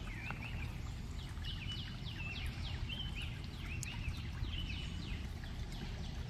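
Songbirds calling, a run of short quick chirps, some sweeping down in pitch and some held briefly, repeating over and over, over a steady low rumble.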